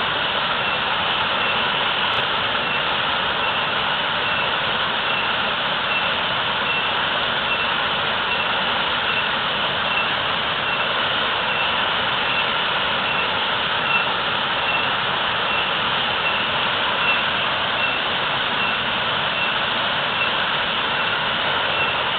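Waterfall pouring heavily, a steady, unbroken rush of falling water.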